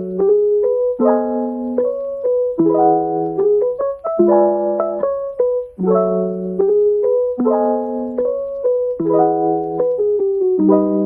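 Background music: soft piano chords over a steady low note, a new chord about every one and a half seconds.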